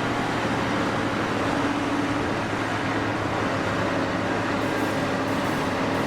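Steady mechanical running noise with a constant low hum and no distinct knocks or pauses.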